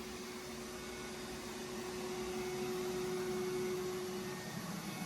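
A steady mechanical hum and hiss with one held tone that stops about four and a half seconds in.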